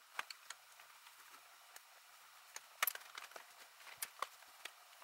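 Faint, scattered clicks and ticks of a small screwdriver turning slotted screws out of a Furby's hard plastic foot plate, with light handling of the toy; a few clicks are sharper, around three and four seconds in.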